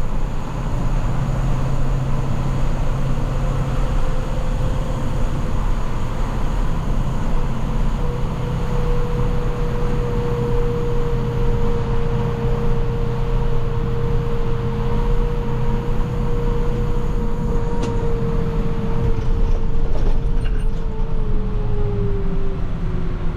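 International TerraStar plow truck driving with its engine running steadily under dense road rumble, along with a steady whine that drops slightly in pitch near the end.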